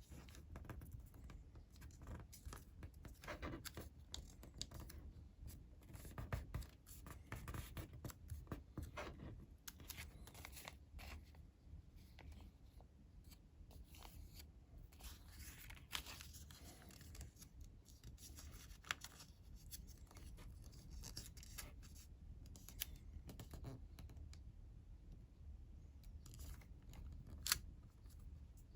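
Sheet of colored origami paper being folded and creased by hand: quiet, irregular rustles, crinkles and scraping strokes as the folds are pressed down, with a sharper paper snap near the end.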